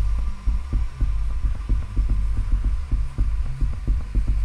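Background music: a low, throbbing pulse repeating several times a second over a steady hum.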